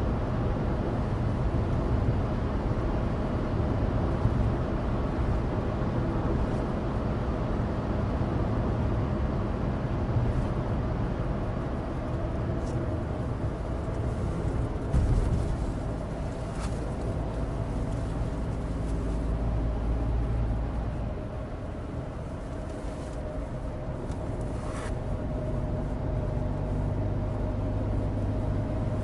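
Cabin noise of a Suzuki Alto Turbo RS (HA36S) on the move: the 660 cc turbocharged three-cylinder engine runs steadily under road and tyre noise from studless winter tyres, with the ventilation fan on its lowest setting. There is a single thump about halfway through, and a few faint short clicks.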